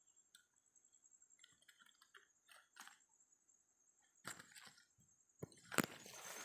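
A faint, steady, high-pitched insect drone with a few soft scattered clicks. From about four seconds in there is rustling and brushing of leaves as someone moves through the coffee plants, with one sharp click near the end.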